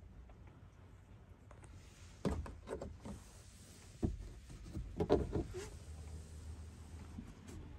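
Knocks and rustling from a hand working the sunroof shade and roof lining in a car cabin, in two bursts, the second the loudest. A low hum follows for about two seconds near the end.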